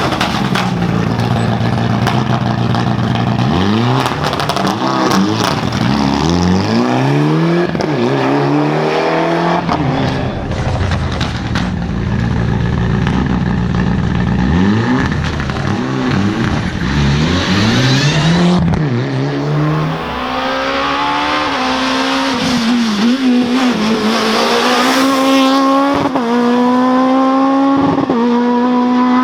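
Rally cars at full throttle, engines revving hard and climbing in pitch through repeated quick gear changes. Near the end, a car pulls with a higher engine note that rises in steps with each shift.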